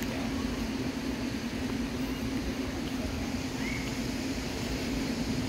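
Steady low hum and rumble of outdoor background noise, with a brief faint chirp about three and a half seconds in.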